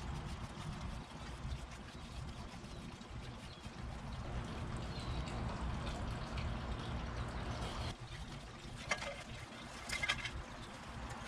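Paintbrush working spar varnish onto a bare driftwood board: a soft, wet swishing, with a few light clicks near the end.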